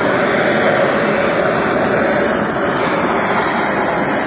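Handheld gas torch running with a steady rushing hiss as its flame is played over the wood to scorch the surface.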